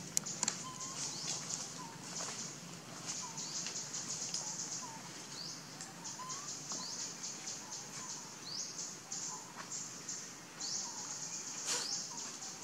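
Wild bird chorus: a high, fast chirping that runs on without a break, with repeated rising sweeps, and a short lower call about once a second. A few sharp clicks fall in among it, the loudest near the end.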